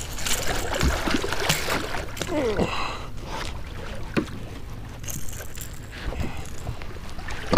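Water splashing and sloshing against a kayak hull, with scattered knocks and clatter of gear on the boat, as a caught catfish is handled at the waterline.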